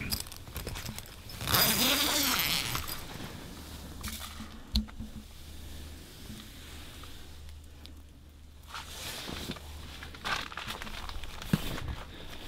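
A tent door zipper is pulled open in one raspy run about a second and a half in, followed by rustling of tent fabric and clothing. Near the end come a few footsteps on fresh snow.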